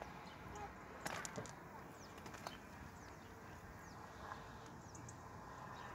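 Quiet outdoor ambience with faint, short bird chirps every second or so and a light knock about a second in.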